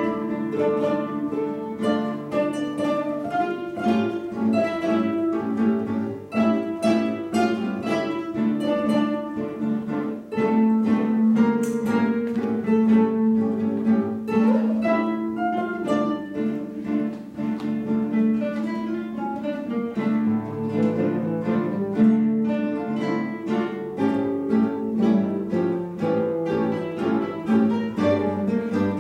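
An ensemble of acoustic guitars playing a piece together, with many plucked notes over a sustained lower part.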